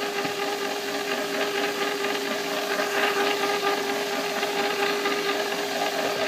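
Electric ice cream maker running steadily: its motor turns the frozen canister of chocolate ice cream base against the mixing blade with an even hum and a whir. This is the start of churning, soon after the liquid base was poured in.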